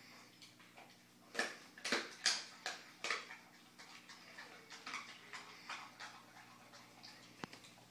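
American Staffordshire Terrier eating a whole raw chicken: wet smacking and crunching chews in irregular bursts, busiest and loudest from about one and a half to three seconds in, then smaller clicks and a single sharp crack near the end.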